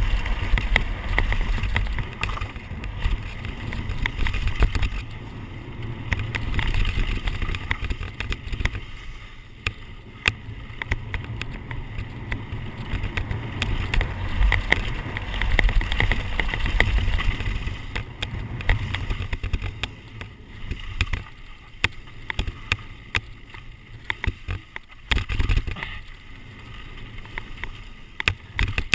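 Downhill mountain bike running fast over a dry, stony dirt trail: rushing wind on the rider's camera microphone and tyres on loose gravel, with frequent sharp clatters and knocks from the bike over rocks and bumps. The wind rush swells and eases, lighter in the later part where the clatters stand out.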